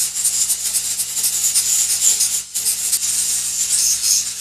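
Dremel 4000 rotary tool on a flex shaft spinning a Scotch-Brite abrasive wheel against soft carved wood: a steady scratchy hiss that breaks off briefly about halfway through, over a steady low hum.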